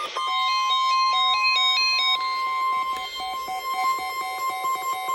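Emergency alert tones from radio receivers sounding over one another: a steady high alarm tone sets in just after the start and holds, with stepped beeping notes over it, then quick repeating beeps in the second half.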